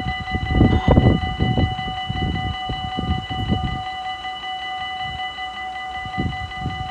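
Level-crossing warning bell ringing continuously, a steady multi-pitched tone, as the barriers rise. Irregular low rumbling underneath is loudest about a second in.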